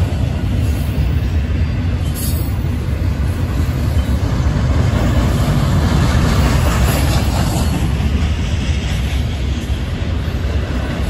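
Double-stack intermodal freight train's loaded well cars rolling past close by: a steady, loud rumble of steel wheels on rail.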